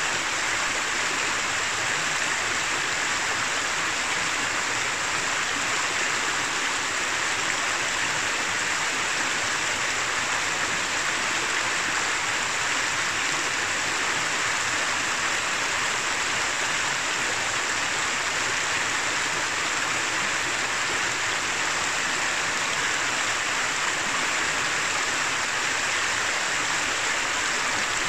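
Shallow upper reach of the Noguera Pallaresa river running over rocks and stones: a steady, even rush of water that does not change.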